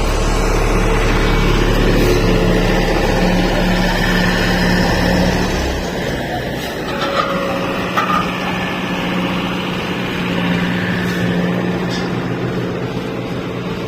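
Heavy vehicle engine running steadily; its deepest rumble drops away about six seconds in, leaving a lighter hum.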